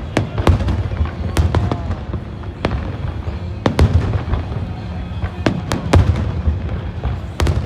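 Fireworks display bursting: a rapid run of about a dozen sharp bangs, several coming in quick pairs or triples, over a continuous low rumble.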